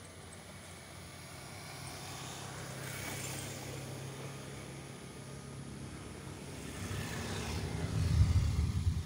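Motorcycle engines passing: one swells and fades about three seconds in, and another grows steadily louder near the end.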